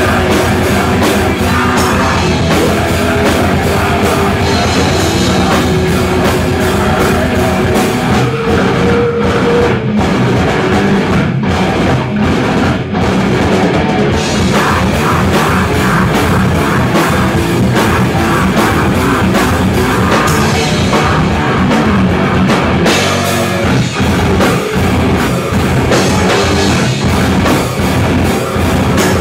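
Live rock band playing loudly: electric guitar over a drum kit beating steadily.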